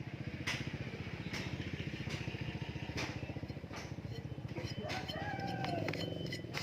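A rooster crows once, about five seconds in, over a steady, fast low machine thrum. In the first four seconds sharp ringing strikes come about once every second, hammer blows on hot metal at the forge.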